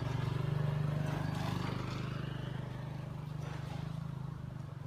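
A motor running steadily with a low hum that slowly grows a little quieter.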